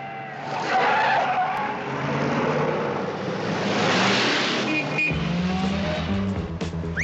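Car tyres squealing as a sedan pulls away hard, with the engine running under it, in two loud swells. About five seconds in, music with a low bass line comes in.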